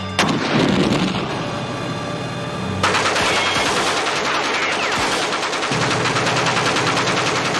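A loud sudden blast just after the start. Then, from about three seconds in, continuous rapid automatic gunfire: machine-gun fire, with a steady low hum underneath.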